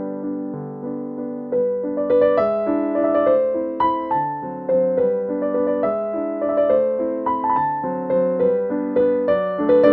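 Background music: a gentle piano piece, with a melody of single notes over soft chords.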